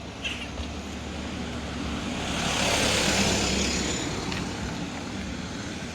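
A motor vehicle passing close by on the street, its engine and tyre noise swelling to a peak about three seconds in and then fading.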